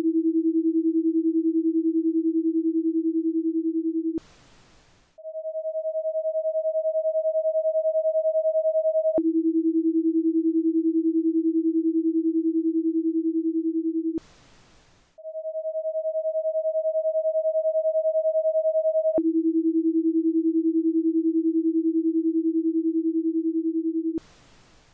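Electronic breathing-pacer tones in a ten-second cycle: a steady higher tone for about four seconds cueing the in-breath, then a steady lower tone for about five seconds cueing the out-breath, then about a second of faint hiss marking the breathing pause. The cycle runs two and a half times.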